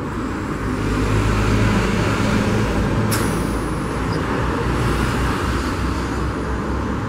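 A person blowing hard by mouth into a pressure cooker's vent pipe to pressurise the pot with air for a soap-bubble leak test. It is a steady, close-up rush of breath, with a brief click about three seconds in.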